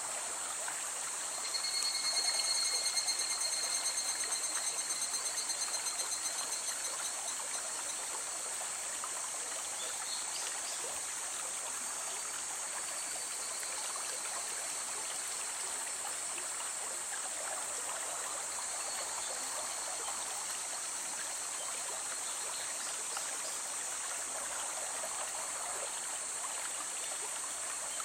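River water flowing steadily, a continuous rush. About two seconds in, a rapid pulsing trill of an animal call rises over it and fades out over the next five seconds or so.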